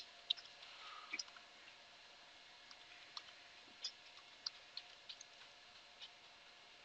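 Faint, irregular computer keyboard keystrokes: a scattering of soft single clicks while a command is typed.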